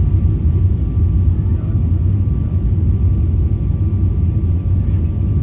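Steady low rumble of an airliner's engines and airflow as heard by a passenger in the cabin, with a faint steady whine above it.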